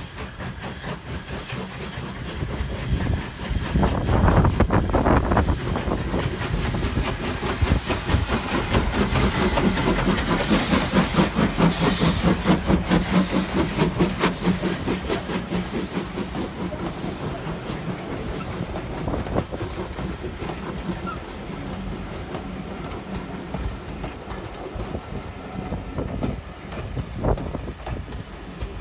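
A steam locomotive passes close by, its exhaust beating fast and evenly, with a brief hiss of steam at its loudest. Then a rake of coaches rolls past with the clickety-clack of wheels over the rail joints.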